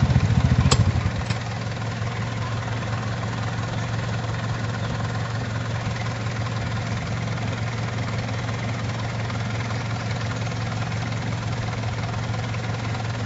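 A vehicle engine idling with a steady low hum. About a second in, a louder throbbing engine sound drops away, with two sharp clicks, leaving the quieter idle.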